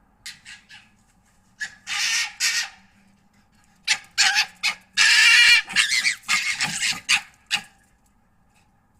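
Red foxes calling: three short calls at the start, two longer ones around two seconds in, then a rapid string of calls from about four to seven and a half seconds, the loudest a long call about five seconds in.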